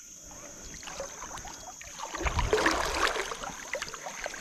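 Water sloshing and splashing close to the microphone, quiet at first and growing louder and choppier about halfway through, with a low rumble under it.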